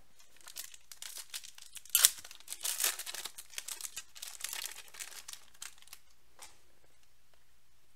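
Foil wrapper of a baseball card pack being torn open and crinkled by hand: a sharp rip about two seconds in, then crackling crinkles that die away after about six seconds.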